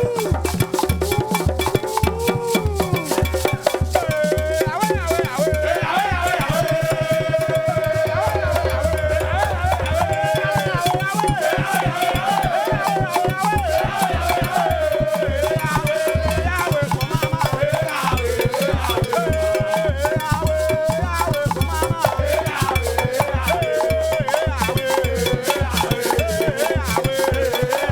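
Lively, upbeat band music: a fast, even shaker rhythm over a steady pulsing bass beat, with a wavering melody line on top.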